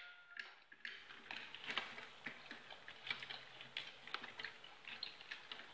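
Faint, irregular light clicks and taps of a metal fork and spoon against a plate as food is picked at, several a second.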